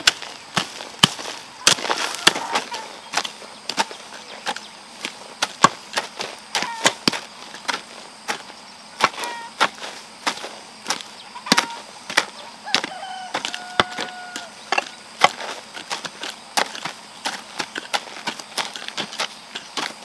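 Hand hoes chopping into the soil to cut out weeds: sharp, irregular strikes, one to three a second, from more than one hoe working at once.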